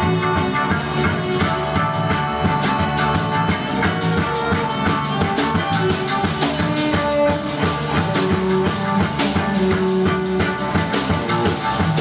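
Rock music with drum kit and guitar playing steadily, a dense psychedelic-rock sound.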